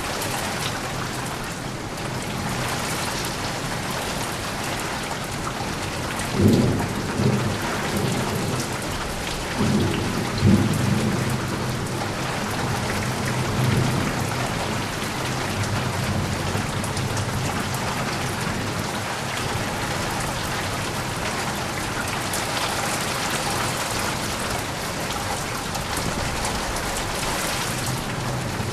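Steady heavy rain hissing, with rolling thunder rumbling about a quarter of the way in, again shortly after, and a lighter roll near the middle.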